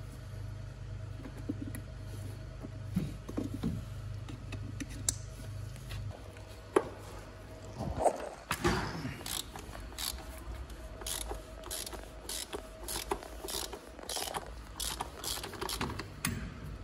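A steady low hum that stops about six seconds in, a few knocks and scrapes of handling under the van, then a hand ratchet wrench clicking in quick runs as it turns a cap on the engine.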